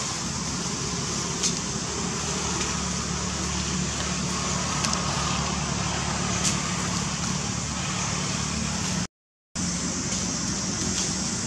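Steady outdoor background noise: a constant low hum under an even high hiss, with a few faint clicks. The sound cuts out for a moment about nine seconds in.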